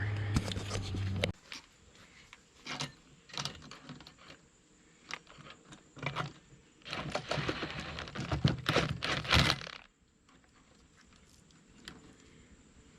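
Small metal chainsaw parts and hand tools being handled while a new sprocket and chain tensioner are fitted: irregular clicks, knocks and rattles, busiest and loudest in a clattering stretch past the middle. A low hum cuts off about a second in.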